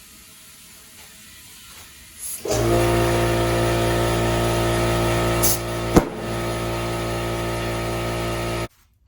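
Air compressor starting up about two and a half seconds in and running with a steady hum, refilling after a tire has been inflated. A sharp click comes about six seconds in, after which it runs a little quieter, and the sound cuts off abruptly near the end.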